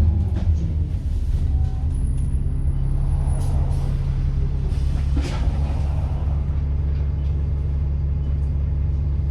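Diesel engine of a First South Yorkshire single-decker bus idling steadily, heard from inside the bus, with a short hiss of released air from the air brakes about five seconds in.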